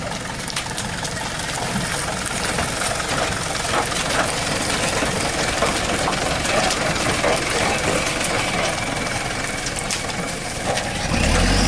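A truck's engine running under a steady hiss, with scattered rattling clicks; a deeper engine note comes in near the end.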